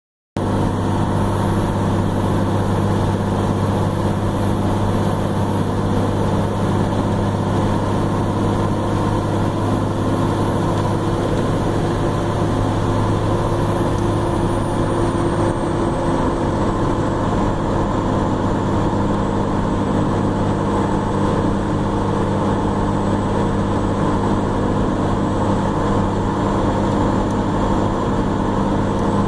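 Dodge Ram 2500's Cummins inline-six turbo diesel pulling steadily at highway cruise, a constant low engine drone over road noise, heard from inside the cab.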